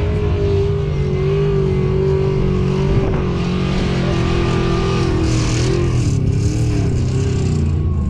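Off-road vehicle's engine running hard as it drives across a sand dune, its pitch holding steady and then wavering up and down in the last couple of seconds.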